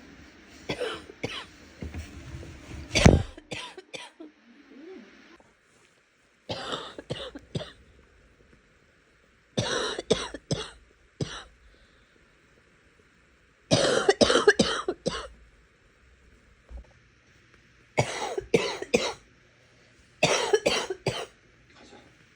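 A person coughing wetly, in about seven bouts of several quick coughs each, with pauses of a few seconds between bouts. The cough is chesty and phlegmy.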